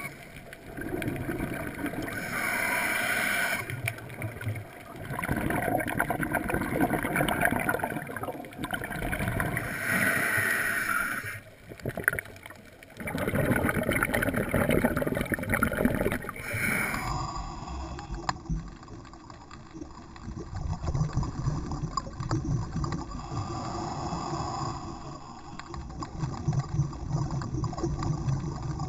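Scuba diver breathing through a regulator underwater: gurgling rushes of exhaust bubbles swell and fade every few seconds, one with each exhale.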